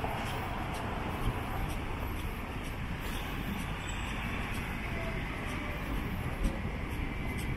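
Steady city street ambience: road traffic going by with a low rumble.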